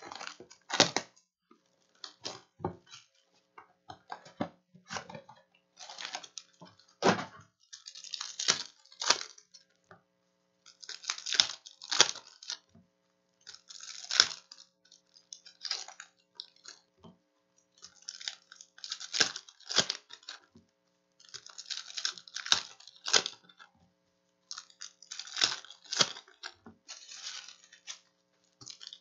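Plastic shrink wrap and foil wrappers of Panini Revolution basketball card packs crinkling and tearing as the box and packs are ripped open by hand. The crackle comes in repeated bursts with short pauses between.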